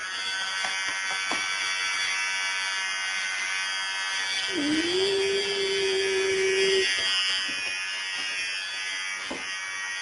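Electric hair clippers running with a steady, even buzz. About halfway through, a separate held tone rises briefly and then holds for around two seconds.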